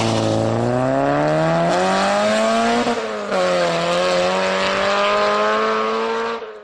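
Cartoon sound effect of a vehicle engine speeding off. The engine note climbs for about three seconds, drops as if shifting gear, then climbs again before cutting off suddenly near the end.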